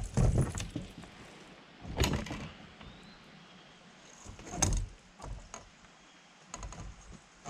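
Dull knocks and bumps on a kayak, about two seconds apart, with lighter clicks and taps between them.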